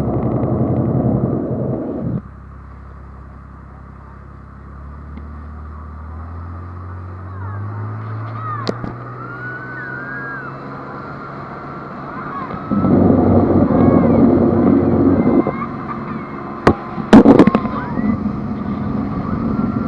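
Speedboat engine running, its pitch rising steadily as it speeds up, with loud rushing noise in stretches and a few sharp bangs near the end.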